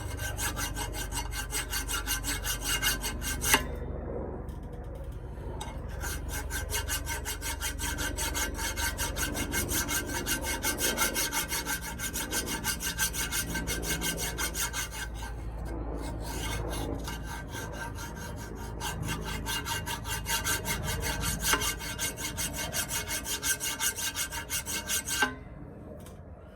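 Hand file rasping back and forth on the cast-steel body of a bench vise in rapid, even strokes, pausing briefly twice. It is taking down a high spot and burrs where the sliding jaw felt tight.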